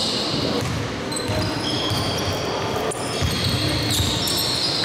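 A basketball being dribbled on a sports-hall court floor, with several short, high squeaks of players' sneakers on the floor.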